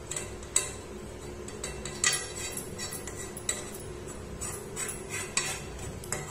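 A spoon scraping and knocking against a pan in irregular strokes as thick khoa is stirred while it cooks down for peda. A steady low hum runs underneath.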